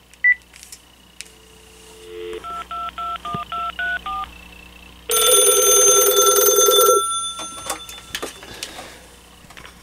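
Panasonic KX-TG6641 cordless handset placing a call: a short key beep, about a second of dial tone, then seven quick touch-tone digits. A loud electronic telephone ring with a wavering tone follows for about two seconds.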